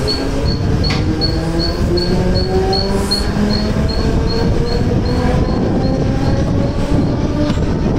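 Mumbai suburban EMU local train pulling out and accelerating: the motors' whine rises in pitch in steps over a steady rumble of the wheels. A short high beep repeats about three times a second and stops about six seconds in.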